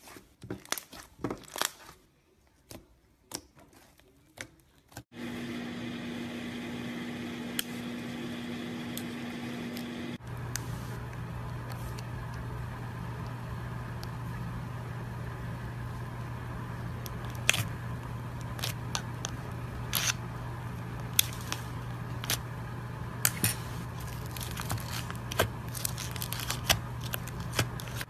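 Slime being pressed and worked by hand, making scattered sharp clicks and pops, over a steady background hum. The hum changes pitch at about five seconds and again at about ten seconds.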